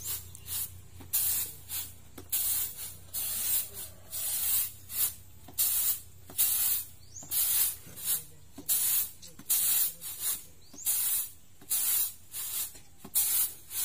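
Rice grains swishing and rustling on a woven bamboo winnowing tray (tampah) as it is tossed and shaken by hand to clean rice of chaff and dirt, in a steady rhythm of nearly two swishes a second.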